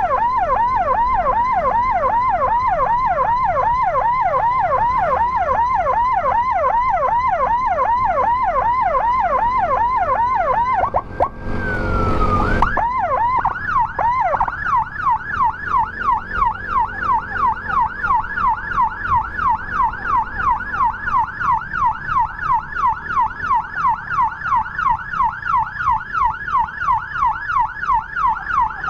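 Electronic emergency siren sounding a fast yelp, its pitch sweeping up and down about two and a half times a second. Around the middle a brief burst of noise cuts across it, then the yelp carries on in a narrower, higher sweep.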